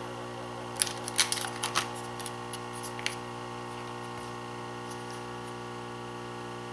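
A cluster of light clicks and taps, loudest about a second in and trailing off by about three seconds, as the removed DIP chip and the circuit board are handled on the workbench mat, over a steady electrical hum.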